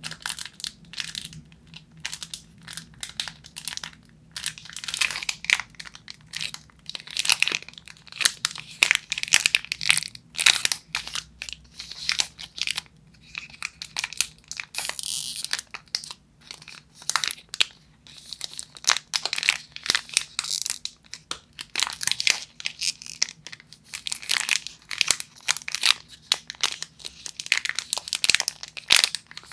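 Hands crinkling and squeezing the plastic wrappers of packaged chocolate bars: a dense, irregular run of crackles with no let-up.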